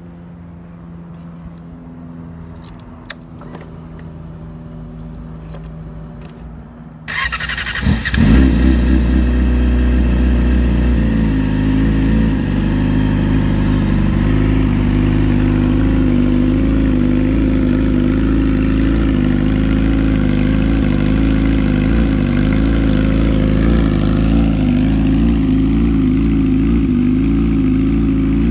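Yamaha YZF-R6 inline-four sportbike engine through an aftermarket SC-Project exhaust, started up: after a quieter low hum, the starter turns it over about seven seconds in and it catches loudly, holds a slightly higher idle for a few seconds, then settles into a steady idle.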